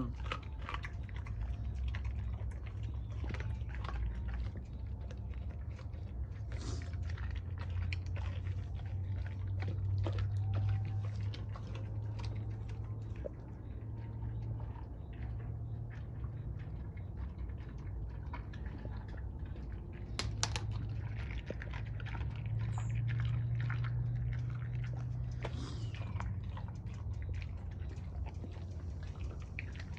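A Doberman chewing raw squirrel, with irregular crunching and clicking bites. A steady low hum runs underneath.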